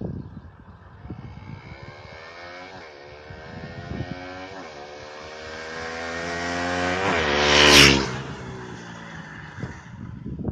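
KTM Duke 125's single-cylinder 125cc four-stroke engine with its stock exhaust, accelerating with two short dips in pitch like upshifts. It is loudest about eight seconds in, then drops sharply in pitch and level, as a motorcycle does going past.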